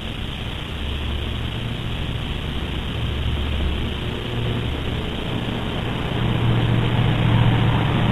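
Pressurised Coleman Peak 1 442 liquid-fuel stove burning kerosene: a steady rushing noise from the burner with a wavering low rumble that grows louder over the last couple of seconds.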